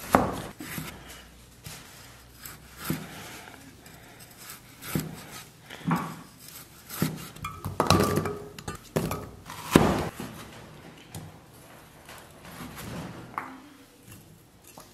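Cleaver chopping pork belly into chunks on a thick wooden chopping block, irregular knocks about a second apart, with clinks as pieces drop into a stainless steel bowl.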